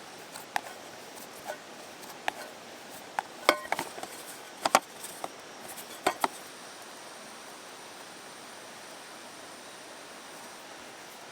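A scattered series of sharp clicks and knocks, a few with a short ring, like objects being handled and set down, over about the first six seconds; after that only a steady hiss.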